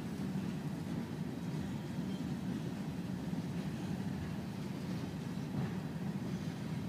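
Union Pacific freight train's autorack cars rolling past, a steady low rumble of steel wheels on the rails.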